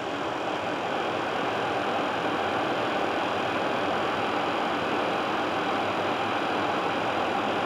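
Steady flight-deck noise of an Airbus A330-300 on final approach, airflow and engines mixed, growing slightly louder in the first second and then holding even.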